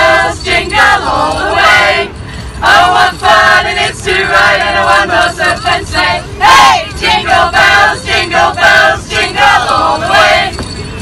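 A mixed group of men and women singing a Christmas song together in chorus, the phrases broken by short pauses.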